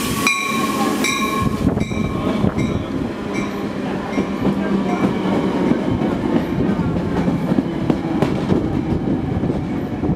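Metra commuter train of stainless-steel bilevel cars rolling in close past the platform: a dense rumble with wheels clicking over the rail joints. A bell rings about three times a second and stops about a second and a half in.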